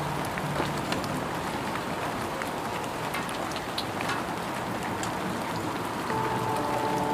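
Steady rain, an even hiss with scattered drop ticks. Soft sustained music notes come in about six seconds in.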